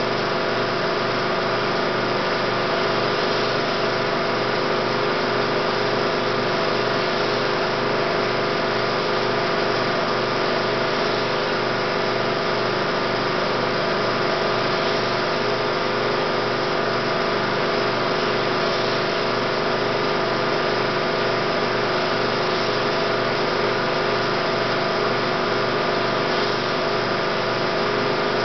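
16mm film projector running: a steady motor hum and whir with a fast, even mechanical flutter.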